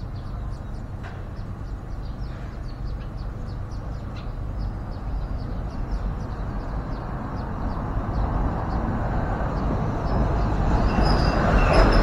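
Low rumble of passing motor traffic, building up to its loudest near the end.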